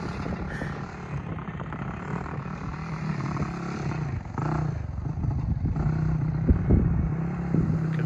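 Yamaha YFZ450's single-cylinder four-stroke engine idling steadily, with a few knocks and clatter in the last couple of seconds.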